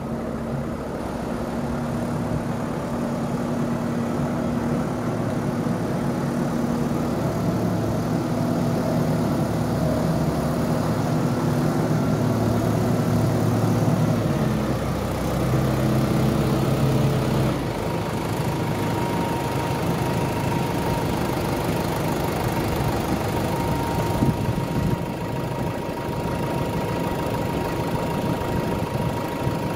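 New Holland T5060 tractor's four-cylinder diesel engine running as the tractor drives out and pulls up, its note shifting about halfway through; a thin steady whine joins in for the second half.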